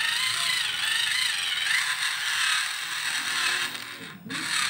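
Battery-powered automatic pencil sharpener's motor whirring with a grinding rasp as its blade shaves a pressed-in pencil; it cuts out briefly about four seconds in and starts again.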